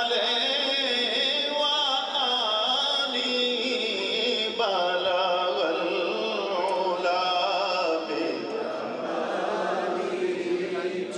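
A man singing a naat (devotional praise song) into a microphone, drawing out long, wavering held notes.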